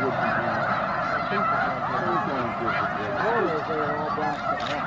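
A large flock of snow geese calling all at once: a dense, continuous chorus of many overlapping honks.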